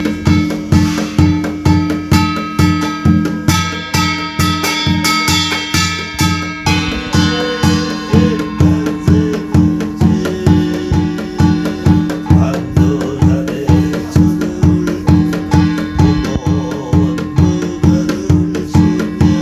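Yanggojang, a Korean shaman's barrel drum with brass gongs mounted on its frame, beaten in a steady rhythm of about two strokes a second, with metal gong strokes ringing over it in places. A steady held tone runs beneath, the piri or kazoo part that accompanies this shamanic scripture chanting.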